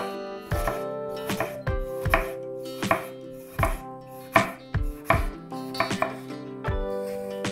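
Chef's knife slicing a yellow bell pepper into strips on a wooden cutting board: an even knock of the blade on the board about every three-quarters of a second.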